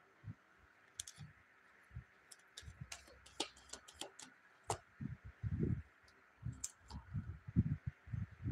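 Cards being drawn from a deck and laid down one by one on a cloth: scattered light clicks and soft taps of card handling, coming more often in the second half.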